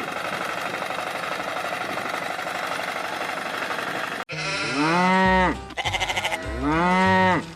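A steady, noisy mechanical rattle for about four seconds that cuts off abruptly, followed by two drawn-out sheep-like bleats, each rising and then falling in pitch.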